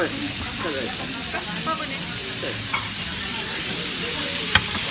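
Steak sizzling and spitting on a hot serving plate, a steady hiss, with a sharp click near the end.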